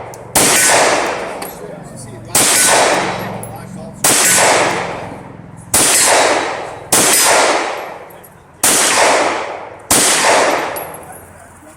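Seven carbine shots fired at an unhurried, uneven pace, one every one to two seconds. Each crack rings out in a long echo that dies away before the next.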